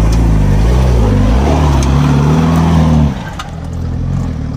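Off-road jeep's engine revving under load as it climbs a dirt slope, its pitch rising and falling with the throttle. About three seconds in the engine note drops off suddenly and turns quieter as the jeep passes and pulls away.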